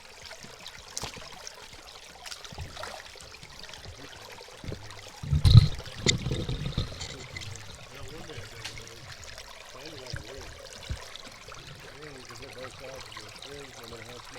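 Creek water flowing steadily, with a loud low thump and rumble about five seconds in.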